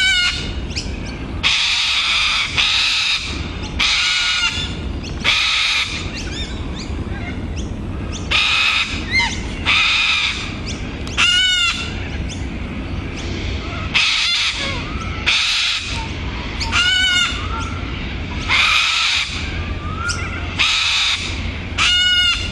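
Short-billed corellas (little corellas) giving harsh, raucous screeches over and over, one every second or two, as a breeding pair excitedly inspects a tree hollow for a nesting site.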